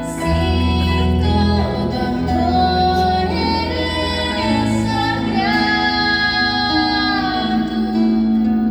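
A girl singing with instrumental accompaniment over steady bass notes, holding one long note about midway through.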